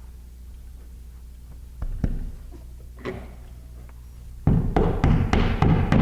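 Hammer tapping plastic wall anchors into drywall holes: a couple of single knocks, then from about four and a half seconds in a quick run of sharp taps, about five a second.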